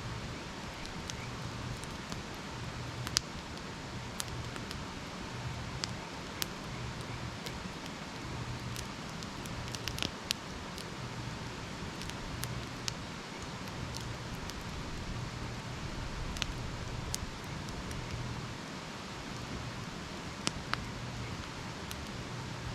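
Wood campfire burning: a steady hiss with scattered sharp crackles and pops, the loudest pop about three seconds in.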